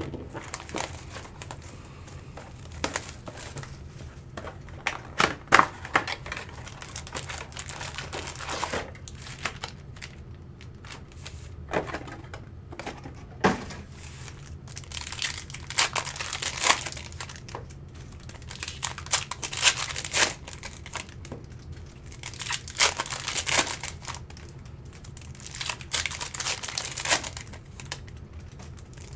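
Plastic trading-card pack wrappers being torn open and crinkled by hand, in irregular rustles broken by sharp crackles.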